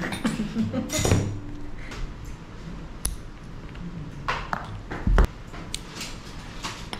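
Art glass being snapped along a score line with glass pliers: sharp clicks, one of them with a high ring about three seconds in. A dull knock comes about five seconds in.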